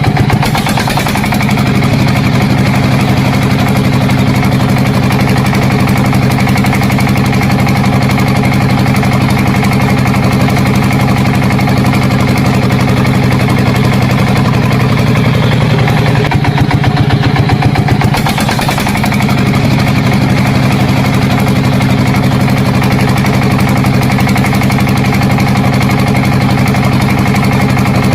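Steady tractor-like engine running at idle with a rapid knocking pulse, its tone dipping and shifting briefly about two-thirds of the way through.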